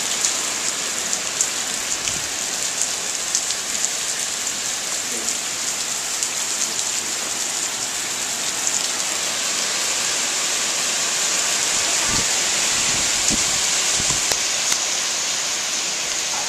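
Steady hurricane rain falling on a lawn and a concrete path: a dense, even hiss with scattered ticks of drops.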